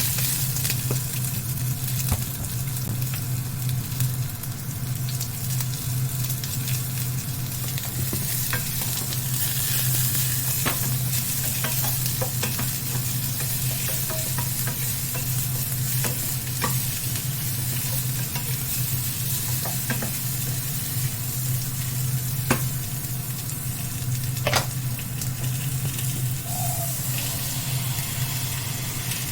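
Food sizzling in a pan over a steady low hum, with a sharp click every few seconds from a utensil against the pan.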